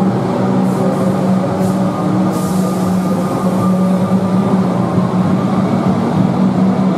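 Comeng electric suburban train moving along an underground station platform: a steady rumble with a constant low hum, and fainter whining tones above it.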